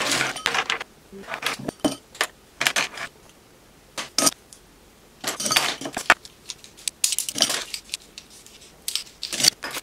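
Makeup brushes clattering as they are sorted from a handful and dropped into a glass jar, their handles and metal ferrules clicking against one another and the glass in irregular bursts with short pauses.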